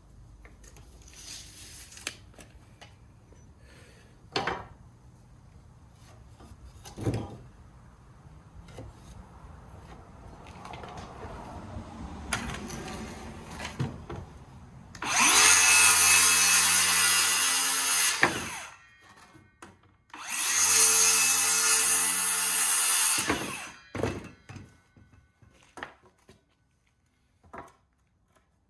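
A power tool runs in two loud bursts of about three seconds each, working on wood, with a few sharp knocks before and after.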